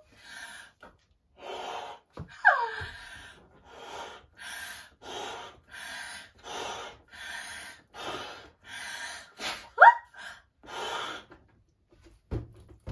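A purple latex balloon being blown up by mouth: a steady run of short breaths, about three every two seconds, with two brief squeaks, one falling and one rising in pitch. The breaths stop near the end, where a few soft low knocks follow as the inflated balloon is handled.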